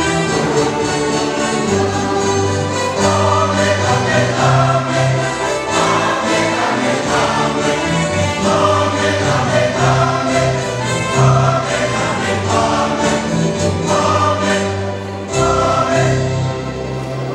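Mixed church choir of men and women singing a Kinyarwanda hymn, with electronic keyboard accompaniment.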